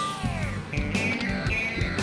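Rock music with a guitar line sliding down in pitch at the start, over a steady drum beat.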